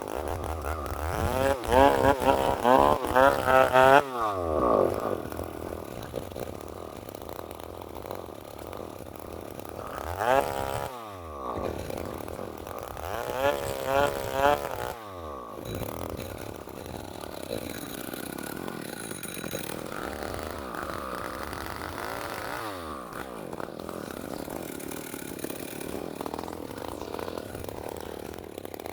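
Two-stroke chainsaw revving in bursts with a wavering pitch, dropping back toward idle several times and running lower and steadier in between.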